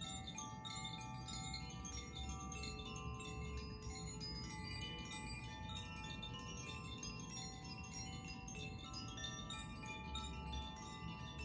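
Sound-healing wind chimes being played continuously: a dense, even wash of many overlapping ringing tones at different pitches, with new strikes constantly layering over the lingering ones.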